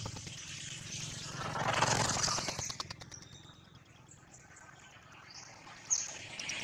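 Baby macaque crying in harsh, noisy calls: one fading just after the start and another about two seconds in. Then it goes quiet, with a few faint high chirps and a sharp click near the end.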